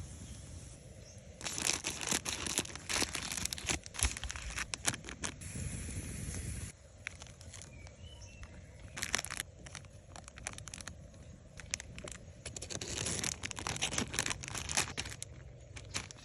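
Close rustling and crackling handling noise with many sharp snaps and clicks, coming in two busy spells.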